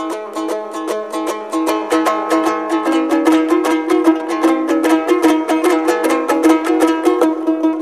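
Background music: a plucked string instrument strummed rapidly, many strokes a second, over a steady low note, in a traditional folk style.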